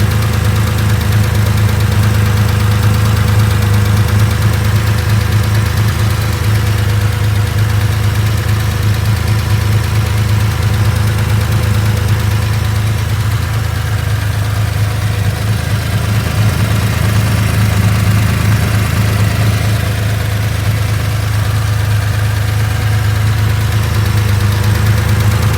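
2.4-litre engine idling steadily, with a ticking from its left-hand side.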